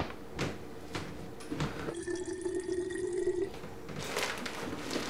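Light knocks and clicks of items being handled and packed into a soft-sided lunch bag, with a steady hum for about a second and a half in the middle.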